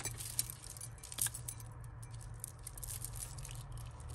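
Beaded and metal costume jewellery clinking and rattling lightly as it is picked up and handled, a string of small light clicks with one sharper click about a second in.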